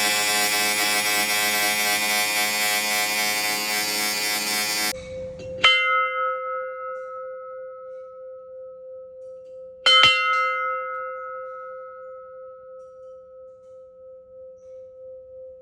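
A brass temple bell struck twice, about four seconds apart. Each strike rings on in a long, slowly fading hum that wavers in loudness. For the first five seconds, steady background music plays instead, then cuts off.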